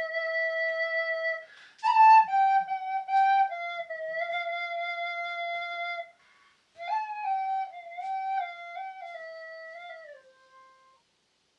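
Background music: a solo flute playing a slow stepwise melody, with a short break about six seconds in and a last held note that dies away near the end.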